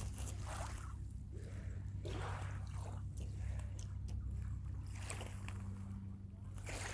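Small waves lapping and sloshing at a lakeshore in soft, irregular washes, over a steady low rumble.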